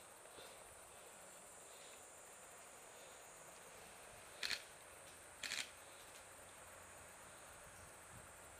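Faint, steady high-pitched chirring of insects over a quiet outdoor hiss, broken about halfway through by two short, sharp bursts a second apart.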